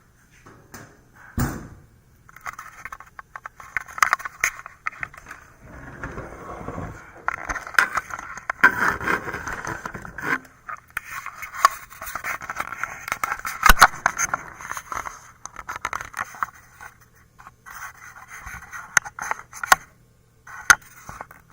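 Hands working on a desktop computer's hardware: repeated scraping of plastic and metal parts with many sharp clicks and knocks, in bursts several seconds long.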